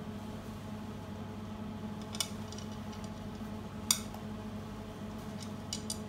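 Steady low electrical hum, with a few short sharp clicks: one about two seconds in, a louder one near the middle, and two more near the end.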